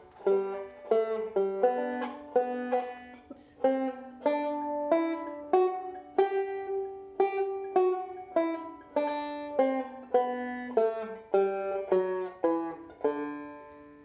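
Deering Goodtime open-back banjo playing a G scale slowly, one plucked note at a time, about two notes a second. A washcloth is stuffed behind the head to damp the ringing overtones, so each note dies away quickly.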